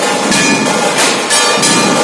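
A Nashik dhol band playing: several large barrel-shaped dhol drums beaten together with sticks in a loud, dense rhythm, with a metallic ringing above the drumming.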